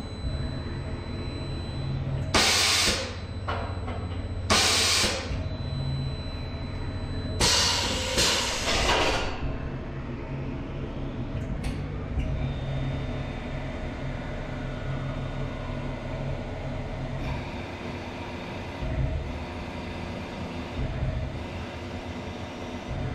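Tormach 1100-series CNC mill changing tools: several short, loud blasts of air from the pneumatic drawbar in the first nine seconds over the machine's steady hum. Then, about twelve seconds in, the spindle runs up with a faint high whine as the drill moves down to the wood block.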